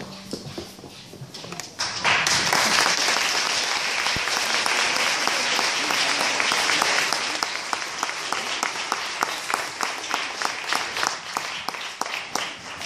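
Audience applauding: a last note fades, then clapping starts about two seconds in, full and dense at first, thinning to scattered separate claps toward the end.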